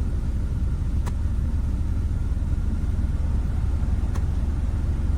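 Car engine idling with a steady low rumble. Two light clicks come about a second in and again near four seconds.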